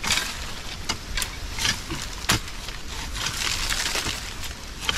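A long digging pole stabbing into dry, crumbly soil, giving about half a dozen sharp knocks, with the scrape and rustle of loose dirt and dry leaves being pulled out of the hole between them.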